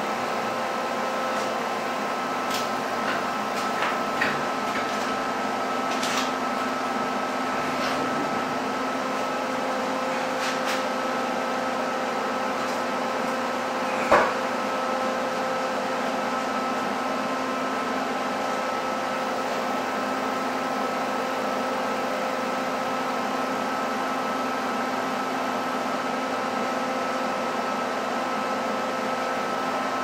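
A steady machine hum with several fixed tones, broken by a few light clicks and one sharper knock about fourteen seconds in.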